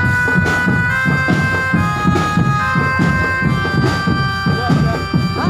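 Drumband music: a reedy wind instrument plays a melody of held notes over a steady drum beat of about three to four strokes a second.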